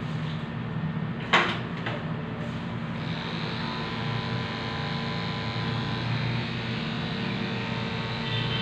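Corded electric pet grooming clipper buzzing steadily as it trims the fur on a dog's face. A sharp click about a second and a half in, and the buzz turns brighter from about three seconds in.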